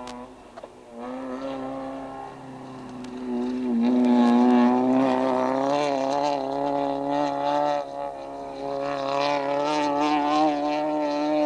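Hatchback rally car's engine held at high revs, a steady high note that grows louder about four seconds in as the car drives through a gravel corner close by, with crackles over it.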